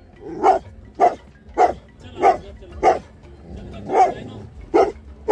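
Labrador barking repeatedly at a cat up in a tree: about eight sharp barks, roughly one every half second or so, with a short pause midway.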